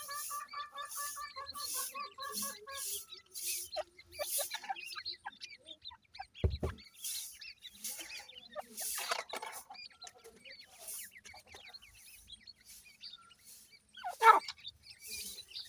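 Grey francolin hen and chicks calling: a run of soft, evenly spaced clucks for the first few seconds that drops lower in pitch, with short high chirps scattered throughout. A dull thump comes about six and a half seconds in, and one louder call near the end.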